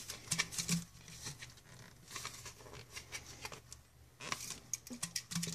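Plastic bottle cap being screwed down by hand onto a thin plastic bottle's threads: faint, scattered clicks of plastic on plastic as it is twisted tight.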